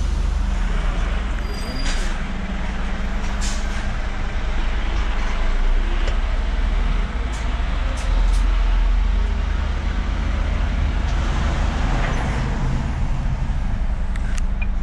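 Scania S500 truck's 13-litre inline-six diesel running at low speed, heard from inside the cab as the truck is manoeuvred through a parking area, with a few short clicks.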